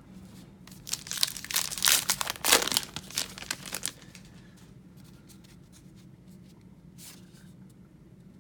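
A trading-card pack wrapper crinkling and tearing open: about three seconds of loud rustling starting about a second in, with a brief softer crinkle near the end.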